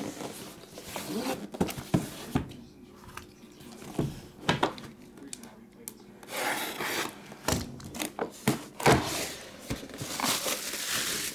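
Cardboard trading-card box being handled and opened: scattered knocks and taps on the box, with cardboard sliding and rubbing in two longer stretches, about six seconds in and again near the end.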